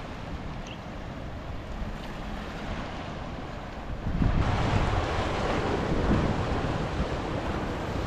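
Small ocean waves washing over a dark volcanic-rock shoreline, with wind buffeting the microphone. The surf and wind get louder about four seconds in.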